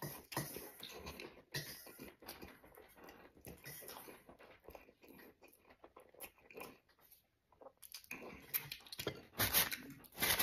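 A person biting into and chewing a mouthful of sliced pig lung, with wet mouth smacks and clicks. A short pause about two thirds of the way through, then a louder run of smacking near the end.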